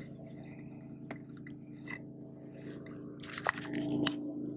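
Close-up clicks, crunches and rustles of hands working a hook and soft plastic swimbait out of a small bass's mouth and handling the fish. There is a brief cluster of louder clicks about three and a half seconds in. A steady low hum runs underneath.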